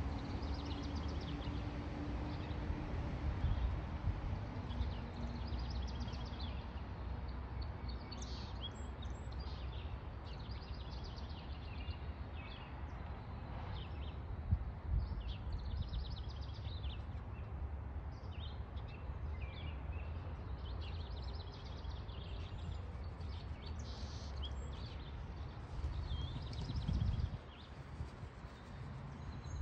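Outdoor ambience: a low rumble of wind on the microphone, with songbirds singing short, high chirping phrases throughout. The wind rumble drops away near the end.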